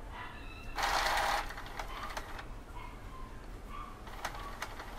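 Epson L120 inkjet printer running its power-on initialisation after a new timing belt and sensor strip were fitted. There is a short rush of mechanism noise about a second in, then scattered clicks and ticks as the carriage settles back to its home position, a sign the new belt and strip work.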